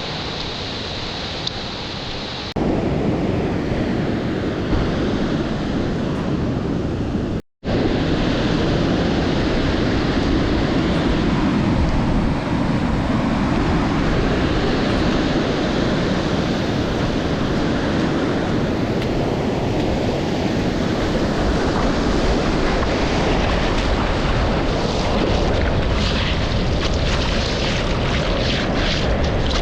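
Loud, steady rush of surf and wind noise on an action camera's microphone in the water. It jumps louder about two and a half seconds in and drops out for an instant at about seven and a half seconds, as at edit cuts.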